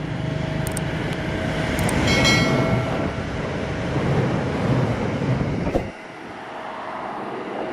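Train running on the rails with a steady rumble and a brief high squeal about two seconds in. Near six seconds the sound changes abruptly and the deep rumble drops away.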